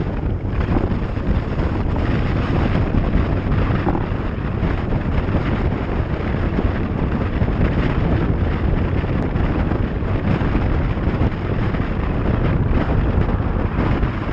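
Steady wind noise on the microphone over the road and engine noise of a vehicle moving on a wet road, with a constant low rumble.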